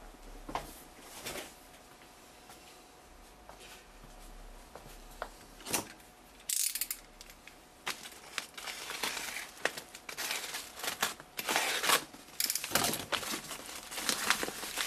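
A parcel's plastic mailing wrap crinkling and rustling as a hand handles it and starts unwrapping it, in irregular bursts that come thicker and louder over the second half.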